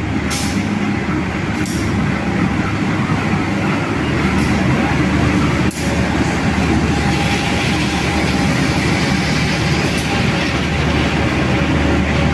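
CC 201 diesel-electric locomotive hauling a passenger train slowly past along the platform: the steady drone of its diesel engine, then the coaches rolling by, with a few sharp clicks.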